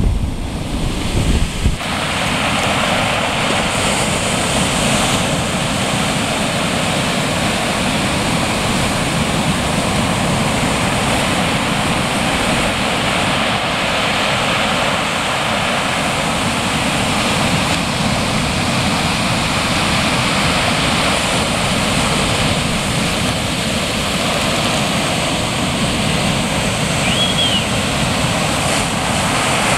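Ocean surf breaking, a steady even roar of waves, with gusty wind on the microphone in the first two seconds.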